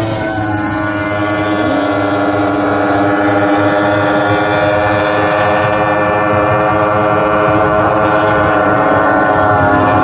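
Several Super E racing runabouts' outboard engines running flat out together, a steady high-pitched drone of overlapping engine notes that grows louder toward the end as the pack comes closer.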